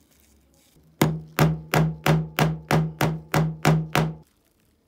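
Steel hammer tapping the head of a small steel pin in a chrome knob resting on a wooden board, peening it over as a rivet to fix the knob to a metal strip. About ten quick, even strikes, roughly three a second, each with a short ring, then they stop.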